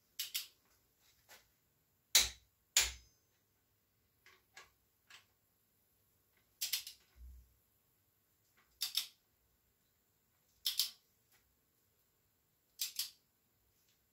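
Click-type torque wrench tightening connecting-rod cap bolts to 43 ft-lbs: a series of sharp metallic clicks, several in quick pairs every two seconds or so, each pair the wrench breaking over at its set torque. Fainter single ticks fall in between.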